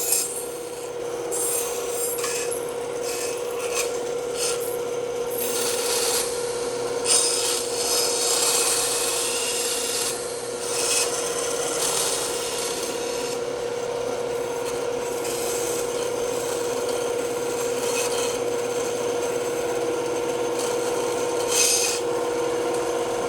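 Bandsaw running with a steady hum, its blade cutting through wood with a rasping hiss that swells and eases as the cut goes on.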